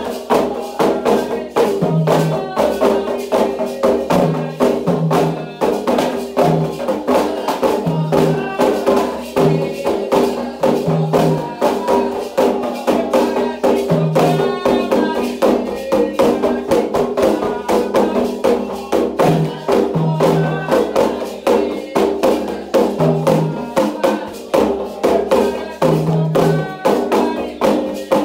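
Candomblé ritual music: atabaque hand drums and struck percussion playing a fast, steady rhythm, with voices singing over it.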